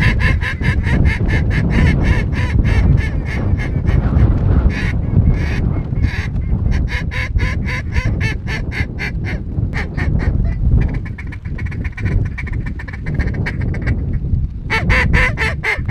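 Snow geese calling: a dense run of short, high, yelping calls, many a second, that thins out at times and comes back loud near the end. A heavy rumble of wind on the microphone runs underneath.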